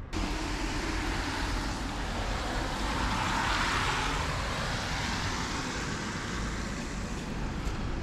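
A car going past on a wet, slushy road: a rush of tyre hiss that swells to a peak about three and a half seconds in and then slowly fades. The sound starts and stops abruptly.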